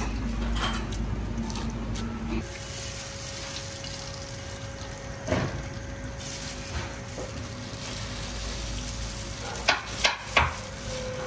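Kitchen clatter over steady background noise and a faint hum, with a few sharp knocks: one about five seconds in and three in quick succession near the end.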